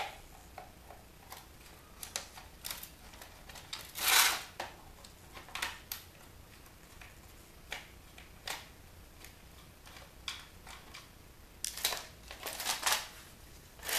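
Scattered clicks and scrapes of a screwdriver backing screws out of a plastic toy keyboard's back panel, with the plastic case being handled. There is a louder scrape about four seconds in and a quick run of clicks near the end.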